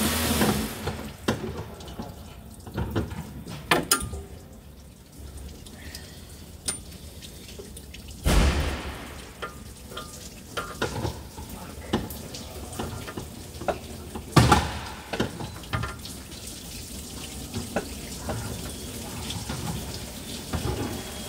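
Liquid running and dripping while tools knock and clank on metal, with a louder clatter about eight seconds in and another near fifteen seconds.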